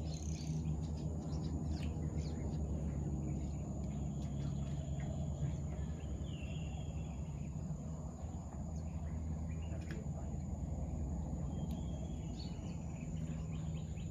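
Outdoor ambience: a steady low hum, with a few faint bird chirps now and then.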